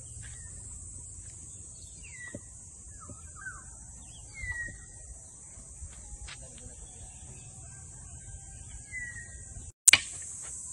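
Steady high-pitched chirring of insects, with a bird giving a few short falling whistles. Near the end the sound drops out for a moment and a sharp click follows.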